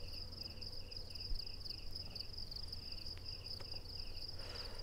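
Crickets chirping at night: a continuous high trill with a lower chirp repeating about three times a second, over a faint low hum.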